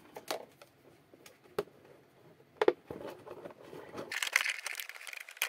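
Scattered light plastic clicks and crinkling, with one sharper click about halfway through and a spell of rustling near the end, as the plastic body shell of a 1:10 RC drift car is fitted back onto its chassis.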